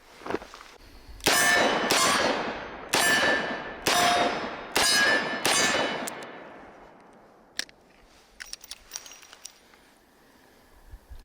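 Six loud shots from a Smith & Wesson Model 19 revolver, roughly a second apart, each with a clanging metallic ring. A few faint clicks follow later on.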